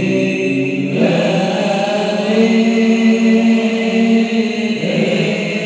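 A group of men singing a nasyid in unison, amplified through microphones and a homemade 1200-watt PA amplifier. The singing moves in long held notes, changing note about a second in and again near the end.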